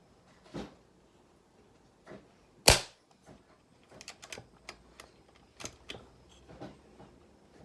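An FX Maverick .22 air rifle fitted with a Huggett silencer firing once, a single sharp, suppressed crack a little under three seconds in. Small clicks and knocks of the rifle being handled come before and after it.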